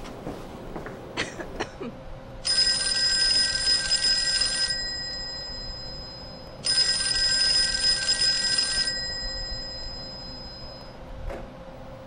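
Telephone bell ringing twice, each ring about two seconds long with a pause of about two seconds between, the bell's tones hanging on briefly after each ring stops. A few light clicks come about a second before the first ring.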